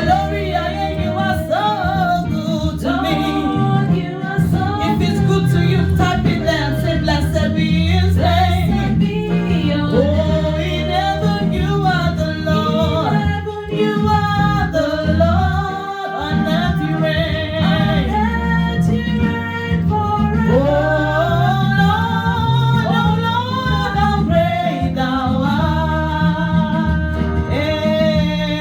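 Worship song: a solo voice singing a melody over a steady instrumental backing.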